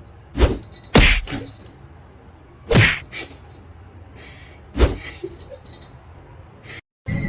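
A series of sharp knocks: six short hits at uneven spacing, the loudest about one second in and again near three seconds, with a fainter one near the end.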